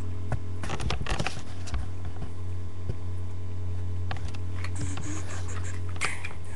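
Wooden toy trains and wooden track being handled: scattered light clicks and scrapes about a second in and again from about four seconds, over a steady low hum.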